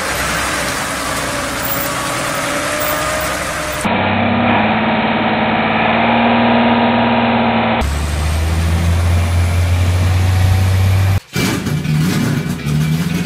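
Mercedes-Benz Unimog truck diesel engines running steadily under load, heard in several short clips one after another, each with a different engine hum and noise. It cuts off abruptly near the end.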